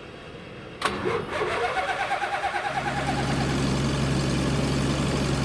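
A Jabiru 3300 six-cylinder aircraft engine is started. The starter cranks in fast pulses for about two seconds, then the engine catches and settles into a steady idle.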